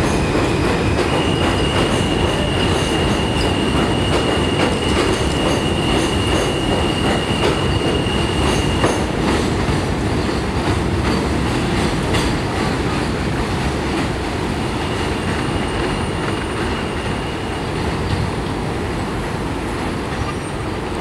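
Vintage New York subway train (BMT Triplex D-Type cars coupled with the Train of Many Metals) running around a curve on an elevated steel structure, wheels clicking over rail joints. A high, steady wheel squeal from the curve sets in about a second in and lasts several seconds, then comes back briefly later. The sound slowly fades as the train pulls away.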